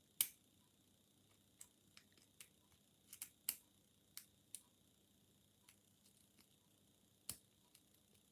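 Faint, irregular clicks and ticks of a steel pick and tension tool working the pin stack of a Euro cylinder lock under light tension, about a dozen in all, the sharpest about a quarter second in, around three and a half seconds and just past seven seconds.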